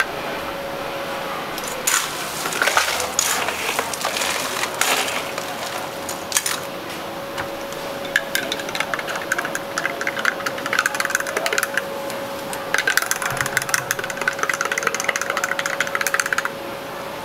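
Drink-making at a street coffee stall: fast runs of clinking and rattling from cups, utensils or ice, with scattered knocks early on, over a steady machine hum.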